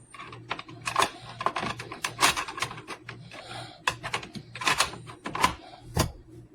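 A quick, irregular run of sharp clicks and knocks of hard objects being handled, over a faint steady low hum.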